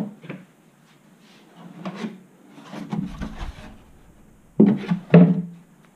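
Wooden model hydroplane hull being turned over and handled on a workbench: wood rubbing and scraping, then two sharp knocks about half a second apart near the end as it is set down.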